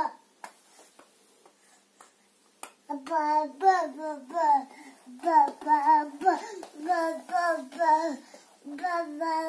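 A young child's voice singing a repeated sing-song melody in short syllables. It starts about three seconds in, after a quiet pause.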